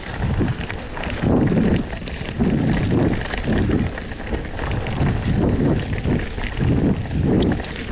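Wind buffeting the action camera's microphone in repeated low gusts, over the rolling and rattling of a full-suspension mountain bike ridden along a forest dirt singletrack.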